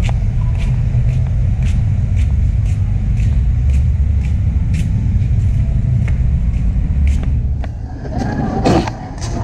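Footsteps about twice a second over a steady low rumble of movement and wind noise on a handheld phone's microphone, while walking. A brief louder sound comes near the end.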